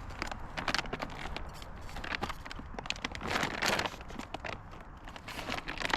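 Rustling and crinkling of a bag being opened and rummaged through by hand, with scattered clicks and a louder rustle about three and a half seconds in.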